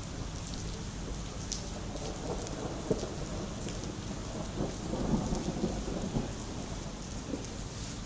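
Steady rain falling on wet pavement, with scattered drip ticks. A low rumble of thunder swells about halfway through and fades again.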